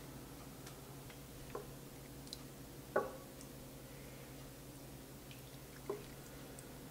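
Wooden spoon stirring cheese cubes into milk in a stainless steel pot, with a few soft wet knocks as it hits the pot, the loudest about three seconds in, over a faint steady hum.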